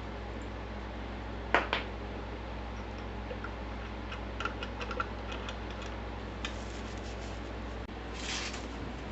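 Two sharp clicks, then scattered light ticks and a short rustle, over a steady low hum.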